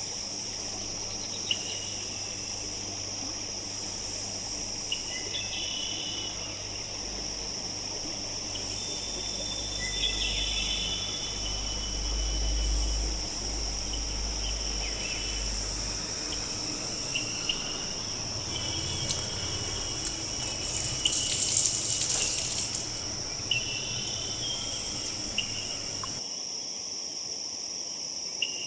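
Steady high-pitched insect drone, like crickets or cicadas, with scattered short bird chirps over it. A low rumble runs for a few seconds in the middle, and a brief louder noise comes about three-quarters of the way through.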